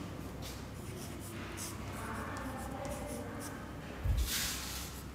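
Chalk scratching and tapping on a blackboard as words are written in short strokes. About four seconds in there is a brief louder rustle with a low thump.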